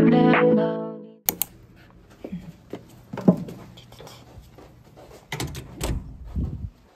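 Soft music fades out in the first second. Then scattered small clicks and knocks of handling and movement at a hotel room door, with a sharper click a little after three seconds in and a few low thumps near the end.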